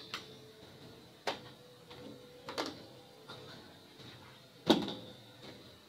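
Several separate knocks and clatters of props being picked up and set down on a low table, the loudest about three-quarters of the way through, over a faint steady hum.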